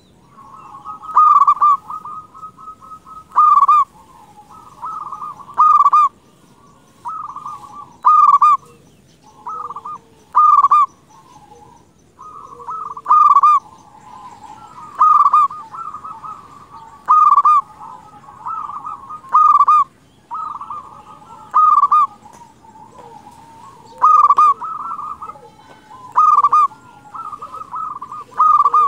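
Zebra dove (perkutut) cooing: a loud coo about every two seconds, with softer rolling coo notes in between.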